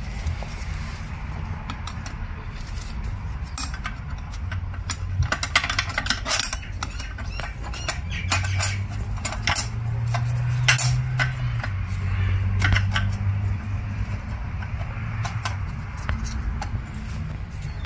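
Irregular light metallic clicks and clinks of clutch-pack parts, a thin steel ring and plates, being fitted by hand into the clutch drum and aluminium case of a Nissan RE0F11A CVT. The clicks start a few seconds in and are thickest a little before the middle.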